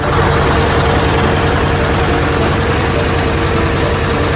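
Inboard engine of a wooden river ferry boat running steadily.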